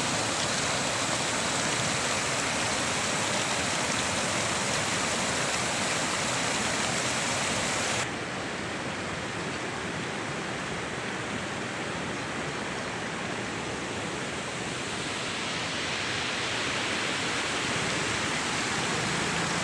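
Floodwater rushing over a road crossing and rocks, a steady, even rush of water. About eight seconds in it cuts abruptly to a slightly quieter, duller rush that swells again toward the end.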